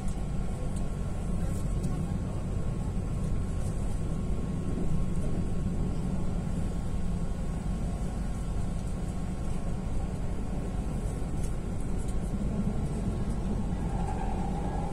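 Steady low rumble of a moving car heard from inside the cabin: engine and road noise, unchanging throughout.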